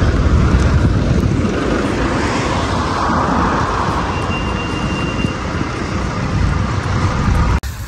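Loud, steady rumble of passing road traffic, swelling about three seconds in and cutting off abruptly near the end.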